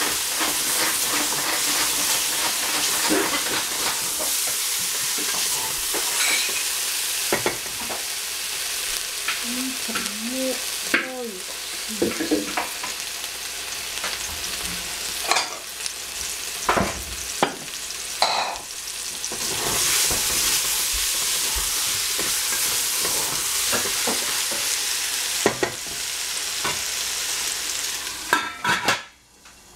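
Eggplant and prunes sizzling in soy sauce in a stainless steel pot, with a spatula knocking and scraping against the pot as it is stirred. Near the end the lid goes on and the sizzling suddenly goes muffled.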